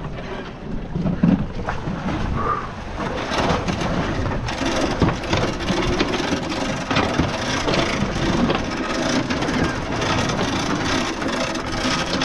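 Wind buffeting the microphone and water churning against the stern of a small boat, with chains and wooden shrimp-trawl boards clinking and knocking as they are handled. The knocks come again and again through the noise.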